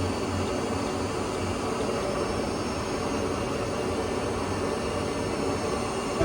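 Pinacho Taurus 260 CNC lathe running steadily, a constant mechanical whirr with a low hum underneath.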